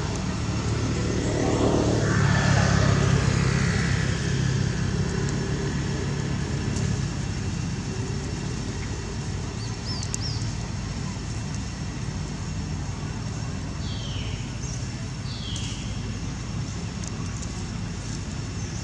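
Steady low rumble of passing road traffic, swelling as a vehicle goes by about two to three seconds in, then settling back. A few short, high, falling chirps come through in the middle and later.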